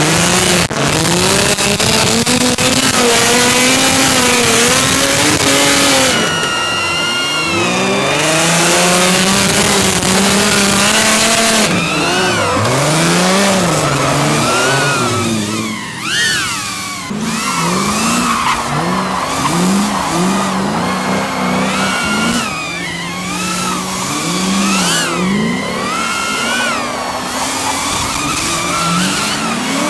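Drift cars' engines revving up and down over and over, with tyres squealing as they slide.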